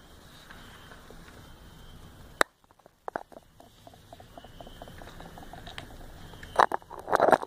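Rain dripping and pattering in an even hiss, broken by a sharp click about two and a half seconds in, then scattered small ticks and a few louder knocks near the end.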